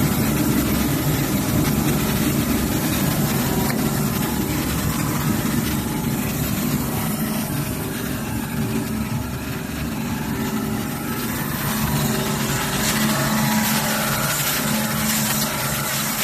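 Wide belt sanding and deburring machine for sheet metal running steadily: a continuous machine hum under a broad hiss, growing a little brighter about two-thirds of the way through.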